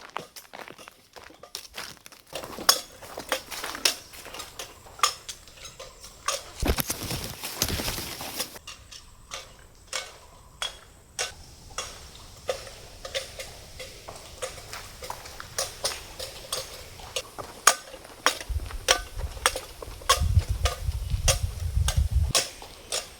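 Irregular sharp clicks and light clatter of hard objects being handled. There is a brief rush of noise about seven seconds in and a low rumble near the end.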